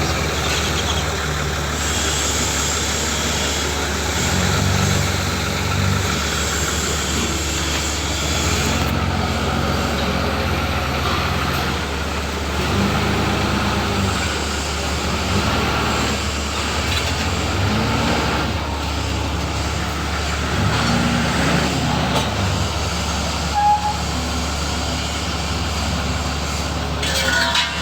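A large vehicle engine running steadily with a deep hum, its low tones shifting every few seconds as it works under changing load. A short sharp sound comes just before the end.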